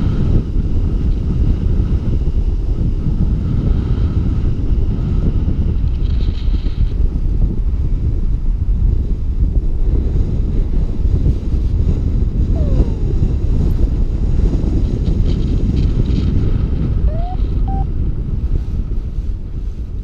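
Wind buffeting the camera microphone as a paraglider flies a low final glide: a steady, loud rumbling rush.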